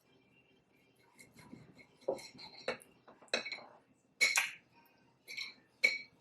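Eating utensils clinking and scraping against a dish: a soft rustle, then six or seven sharp clinks from about two seconds in, each with a brief ring.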